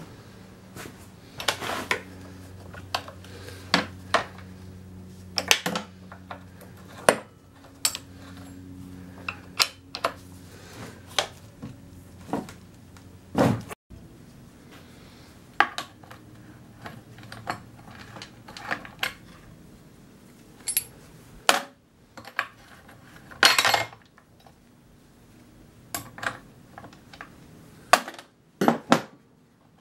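Irregular metallic clinks and clanks of hand work on a Stihl chainsaw: the chain, guide bar and clutch-cover bar nuts being handled with a scrench. A low steady hum runs under the first several seconds.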